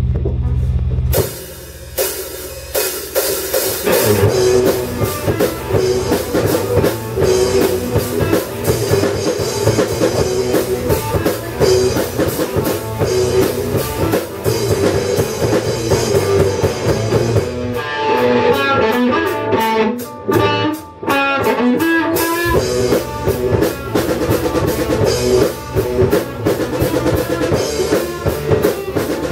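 Live rock band playing a heavy riff-driven song on two electric guitars, electric bass and drum kit. A low note rings at the start before the full band comes in about two seconds later. For a few seconds past the middle the bass and bass drum drop out, leaving the guitars, before the whole band returns.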